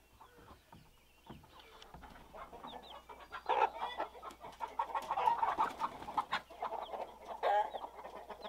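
Chickens clucking and calling in short, repeated notes, starting about three seconds in. A few faint knocks come before the clucking.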